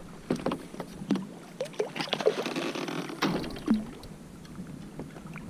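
Scattered knocks and clatters on a plastic fishing kayak as a just-landed giant trevally and barracuda and the tackle are handled. A short rush of noise comes a little after two seconds in.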